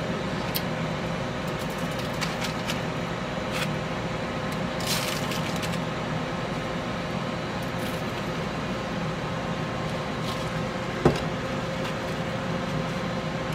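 Steady machine hum, with scattered light clicks and rustling as hands handle seasoned chicken wings in a foil-lined pan, and one sharp knock about eleven seconds in.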